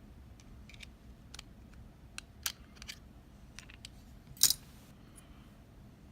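Light metallic clicks and taps of tools working the circlip off a Talon oval lock cylinder, with one much louder sharp click about four and a half seconds in.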